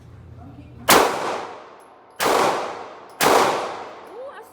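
Three gunshots about a second apart, each followed by a long echoing decay.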